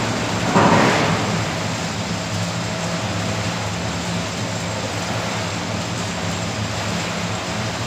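Snack-coating line running, its octagonal stainless-steel seasoning drum turning, a steady machine noise with a low hum under it. A brief louder rush comes about half a second in.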